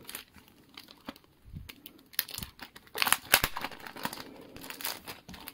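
Clear plastic sleeve crinkling and rustling in irregular snatches as it is handled and art cards are slid out of it, loudest about three seconds in.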